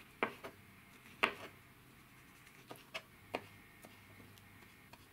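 Kitchen knife chopping figs on a plastic cutting board: a series of sharp, irregular knocks as the blade strikes the board, about eight in all, the loudest about a second in.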